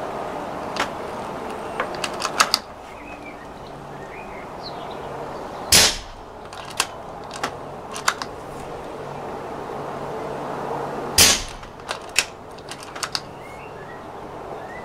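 Two silenced .22 air rifle shots about five seconds apart, each a short sharp crack, fired through an Airgun Capital 3D-printed silencer. Small metallic clicks before and between the shots come from the rifle being cycled and reloaded.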